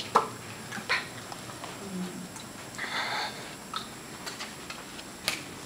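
Sharp slaps and taps of hands meeting during tactile sign language, with a short hum from a voice about two seconds in and a breathy exhale around three seconds.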